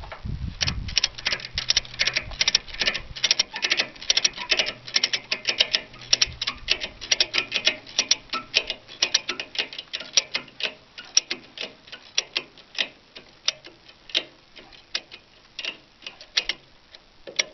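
Cargo ratchet strap being cranked tight, its ratchet buckle giving a quick run of sharp clicks, several a second. The clicks thin out to slower, spaced clicks in the second half.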